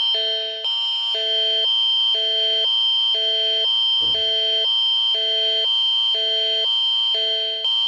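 Electronic emergency-alert alarm tone: a steady high tone under lower tones that sound for about half a second once every second, in an even repeating rhythm.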